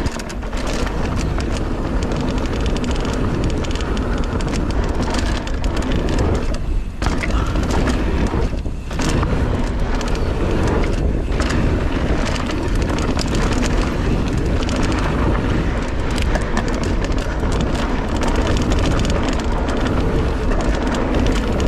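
Wind buffeting the action camera's microphone while a Polygon Siskiu T7 mountain bike rolls at speed down a dirt singletrack, with tyre noise and knocks and rattles from the bike over bumps. The rush drops off briefly twice, near the middle.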